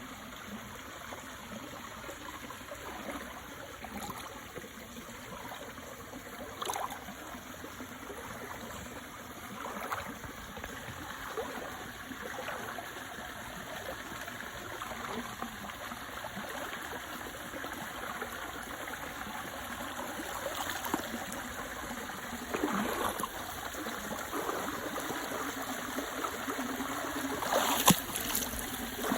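A small stream running, trickling and gurgling steadily, with a few brief louder moments, the strongest near the end.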